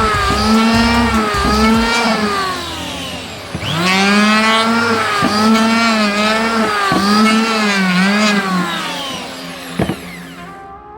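Electric hand planer's motor running at full speed with brief dips in pitch. It winds down about three seconds in, spins up again a moment later, runs with more short dips, and winds down near the end.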